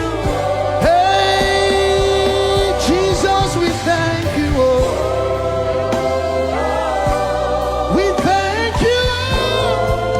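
Live gospel worship music: a voice sings long held notes that slide between pitches over a band with sustained bass.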